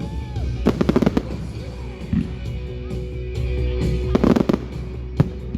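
Fireworks going off: a quick cluster of crackling bangs about a second in, another about four seconds in, and a single sharp bang near the end.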